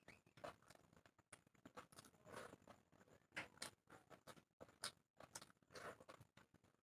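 Faint, irregular wet squishing and clicking of fingers mixing water-soaked panta bhat rice, mixed with soft mouth sounds of chewing, close on a clip-on microphone.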